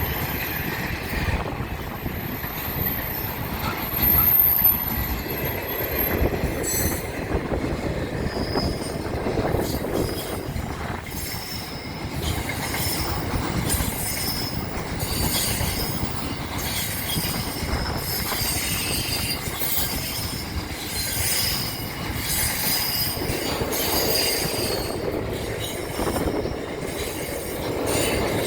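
Train running on the rails with a steady rumble, its steel wheels squealing in high-pitched tones that come and go.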